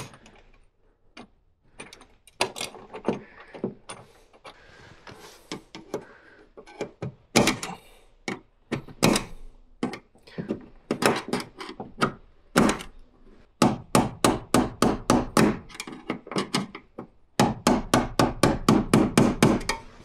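Hammer blows fastening a metal electrical box to a wall: scattered single strikes, then two quick runs of taps at about five a second near the end.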